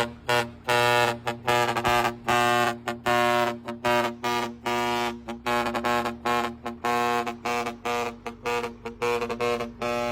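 A four-foot horn blown in a rapid string of short blasts, about two a second, with the pitch shifting from blast to blast, over a steady low hum.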